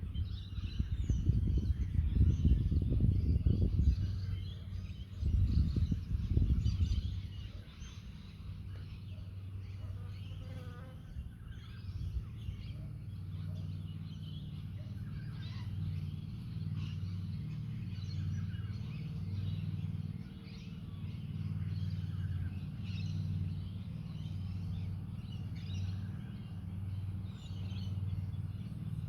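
Wind gusting on the microphone twice in the first several seconds, then the steady low buzz of flying insects, flies or bees, wavering as they move about near the microphone.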